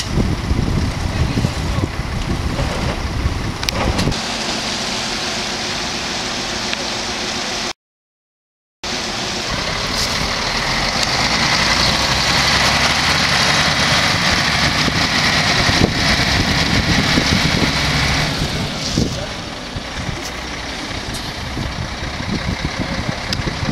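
Diesel engine of a Volvo FL10 heavy rescue truck running as it drives past along the road. Wind buffets the microphone for the first few seconds.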